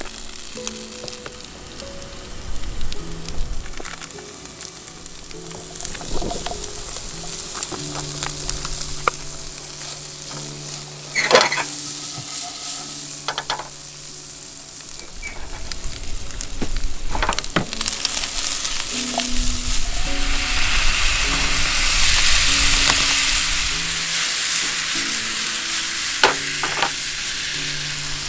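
Potatoes and diced ham sizzling in a frying pan on a portable gas camp stove, stirred with a spatula that now and then taps sharply against the pan. The sizzle grows louder past the middle, loudest a little over two-thirds through.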